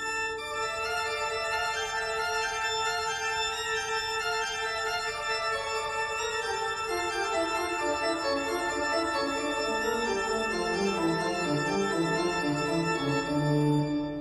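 Slow classical organ music: a long held note with higher lines moving over it, and a lower line stepping in during the second half.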